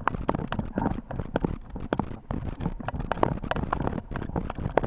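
Kick scooter clattering and rattling over a rough dirt trail while pulled by a dog: a dense, irregular run of sharp clicks and knocks over a low rumble of tyres and wind.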